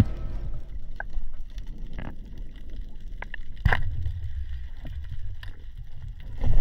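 Underwater noise with a steady low rumble and scattered small clicks. A little past halfway comes a sharper, louder click as a speargun fires its shaft, after which the low rumble is louder.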